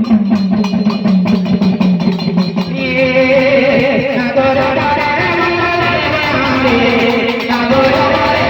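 Music: a melody on a plucked string instrument, with a quick, regular percussion beat in the first few seconds.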